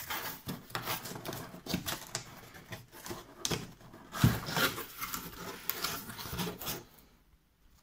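Cardboard carton being opened by hand: flaps pulled apart and the box rubbed and knocked against a wooden table, with a louder thump about four seconds in. The handling noise stops about a second before the end.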